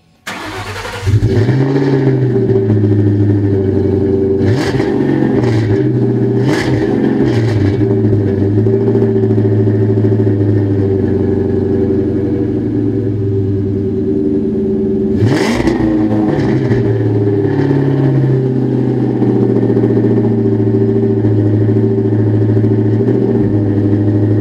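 2003 Mustang Cobra's supercharged 4.6 L V8 started up through a BBK off-road X-pipe (no catalytic converters) and welded-in Flowmaster mufflers, catching within the first second and settling to a steady idle. It is given quick throttle blips a few times around five to eight seconds in and once more in the middle, with an aggressive exhaust note.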